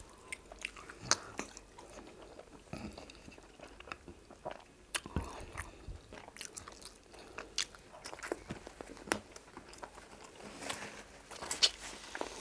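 Close-miked eating sounds of people eating fufu with egusi soup: irregular wet mouth clicks, lip smacks and chewing, a little louder near the end.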